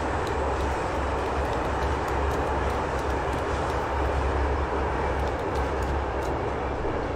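Steady running noise of a moving train heard from inside the carriage: an even hiss over a low, wavering drone, with a few faint light ticks.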